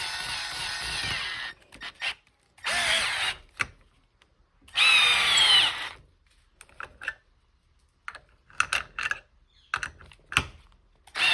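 Milwaukee M12 brushed 12-volt screwdriver driving a 2-inch by 3/8 lag screw into wood. It runs steadily for about a second and a half, then in a series of separate bursts with pauses between them. The pitch drops during the longest burst as the motor slows under load, a sign of the tool nearing the limit of what it can drive.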